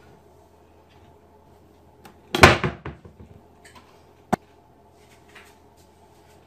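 A loud bang with a short rattling tail about two seconds in, then a single sharp knock about two seconds later, over a low steady hum.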